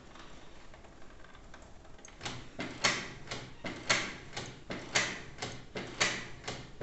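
Canon inkjet all-in-one printer's mechanism starting up for its first colour copy, a series of short whirring clicks beginning about two seconds in, with a strong one roughly every second. It is slow to get going because this is the first print, here after refilling the PG-47 and CL-57 cartridges.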